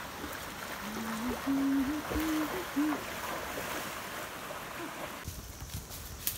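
Rushing water of a fast-flowing mountain stream, a steady hiss that cuts off abruptly about five seconds in. A few low, steady hoot-like tones, stepping up and down in pitch, sound between about one and three seconds in.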